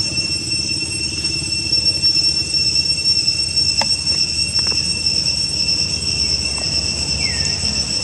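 Steady, high-pitched drone of insects, over a low rumble. A couple of faint clicks come around the middle, and a short falling squeak comes near the end.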